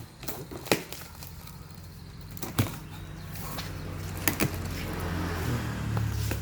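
Scattered sharp clicks and knocks from a parcel of parts being handled and opened, over a low rumble that builds through the second half.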